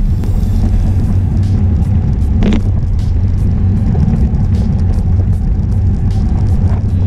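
Steady low rumble of wind buffeting the microphone of an action camera on a racing bicycle at speed, with faint ticking on top.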